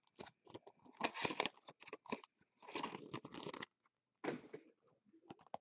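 Foil-wrapped trading card packs crinkling and rustling as they are handled and pulled from a cardboard hobby box, in several short irregular bursts with a brief pause partway through.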